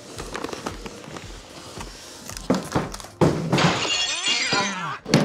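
A heavy case being pulled out of a large cardboard box: cardboard rustling and scraping, two knocks about halfway through, a louder squeaky scrape, and a sharp thunk near the end.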